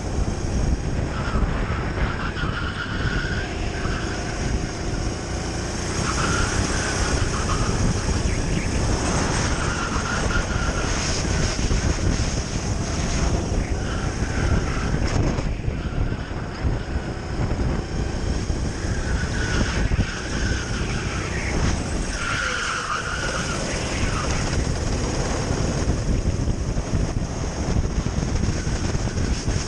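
Onboard sound of a Sodi RT8 rental kart's four-stroke engine running at racing speed, rising and falling with throttle through the corners, with heavy wind buffeting on the camera microphone.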